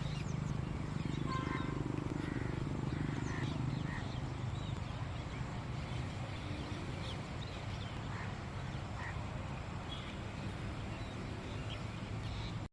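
Wild birds giving short, scattered chirps over a steady low background rumble.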